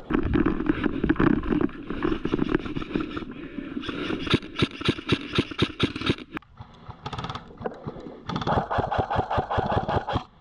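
Airsoft electric guns firing on full auto in rapid bursts, with one long run about halfway through and another near the end.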